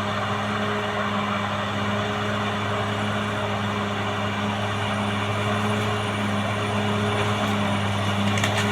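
Caterpillar D6R XL bulldozer's diesel engine running at a steady pitch, with a few sharp clicks near the end.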